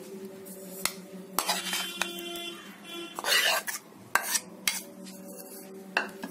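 A metal spoon scooping boiled sweet potato out of a bowl onto a steel plate of semolina. It clinks sharply against the dishes several times, with short scraping sounds between the clinks.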